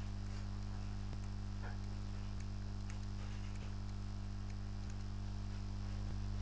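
Steady low electrical hum, with faint regular ticks about every second and a quarter and a few faint scratchy sounds.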